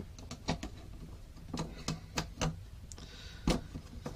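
Light clicks and taps of carbon-fibre quadcopter frame plates and arms being handled and fitted together: a handful of scattered knocks, the sharpest about three and a half seconds in.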